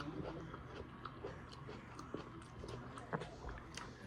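A person chewing and biting food, with soft, irregular wet clicks and crunches.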